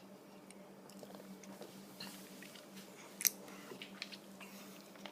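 Faint wet mouth clicks and smacks of a person eating a raw egg, with one sharper click about three seconds in. A steady low hum runs underneath.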